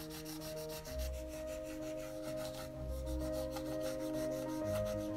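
Graphite pencil rubbing fast back and forth over paper laid on a leaf, a frottage rubbing, in quick even strokes of about eight a second. Soft background music of held notes plays underneath.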